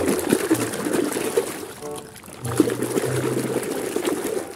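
A hand sloshing and splashing water in a plastic basin crowded with plastic balls. It comes in two bouts, with a short pause about two seconds in.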